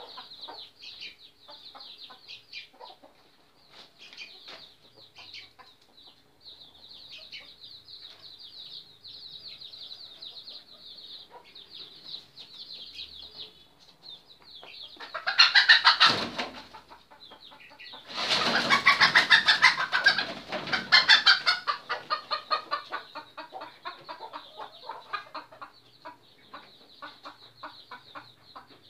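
Junglefowl and roosters clucking over a steady high chirring. A loud flurry of wing flapping comes about halfway through, and a longer one a few seconds later, as a bird flaps on a person's shoulder and in his hands.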